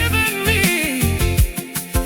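Upbeat gospel praise music: a pitched lead melody that slides up and down over steady bass notes and a regular drum beat.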